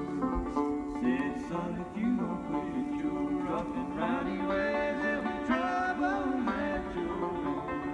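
Country music with banjo playing back from a cassette on a TEAC A-160 stereo cassette deck.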